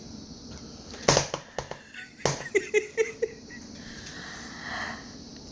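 A short lull between a baby's laughing fits: two short sharp noises, then a few quick little baby voice sounds, and a breathy rushing sound near the end.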